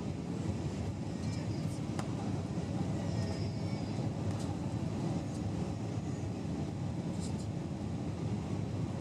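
Steady cabin noise inside an Airbus A320-232 on approach to landing: the low hum of its IAE V2500 engines blended with rushing airflow, heard from a window seat behind the wing.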